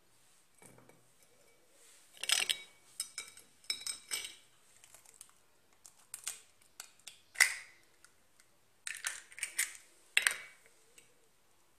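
Kitchenware being handled: faint, irregular clinks and taps of spoons against a bowl and containers, a few of them ringing briefly.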